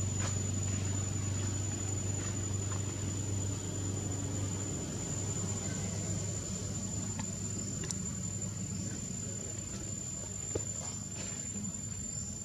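An insect's steady high-pitched drone over a low hum that drops away about five seconds in, with a few faint clicks.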